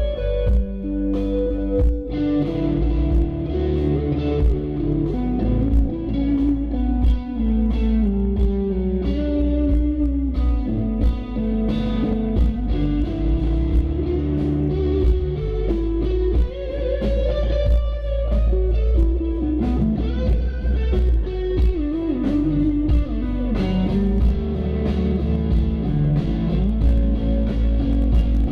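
Live instrumental rock: an electric guitar plays a melodic lead with bending, sliding notes over a loud, deep electric bass guitar, with frequent sharp rhythmic hits throughout.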